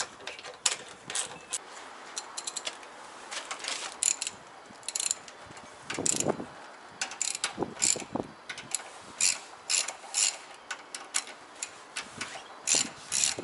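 Ratchet wrench clicking in short, irregular strokes, about one every half second to second, as bolts are worked on an ATV; a heavier clunk about six seconds in.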